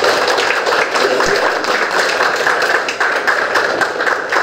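Audience applauding: many hands clapping together, dense and steady.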